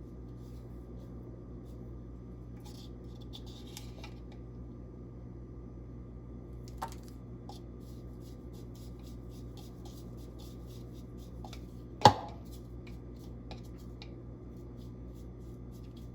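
Small kitchen handling sounds of spice blending over a steady hum: a brief scrape, a run of faint quick ticks, and one sharp knock, the loudest sound, about twelve seconds in.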